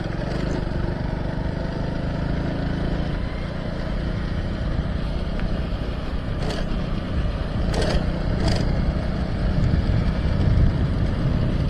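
Motorcycle engine running steadily as the bike rides along a rural road, with a few short knocks past the middle.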